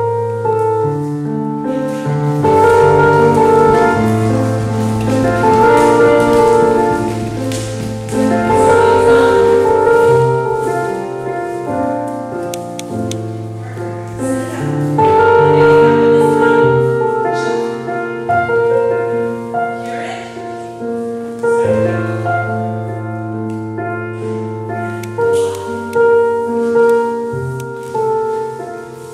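Piano music with long held notes over a low bass line.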